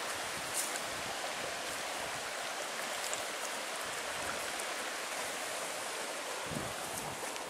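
Shallow creek running steadily over rocks, an even watery rush, with a few soft thumps near the end.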